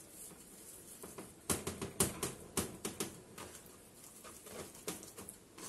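Hands and a spoon pressing and patting powdered seasoning into a slab of raw beef on a plastic cutting board: soft, irregular taps and pats, starting about a second and a half in.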